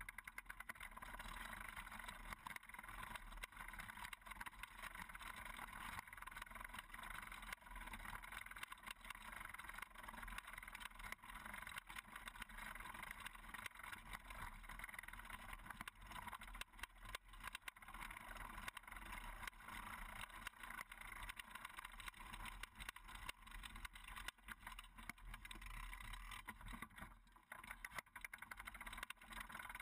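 Steady rolling noise and constant light rattling from a human-powered moonbuggy's frame and spoked wheels moving over rough dirt and gravel, mixed with wind noise.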